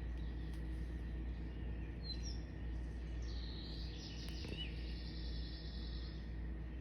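Birds singing outdoors: a short high chirp, then a high rapid trill from about three seconds in until near the end, with another chirp inside it, over a steady low rumble.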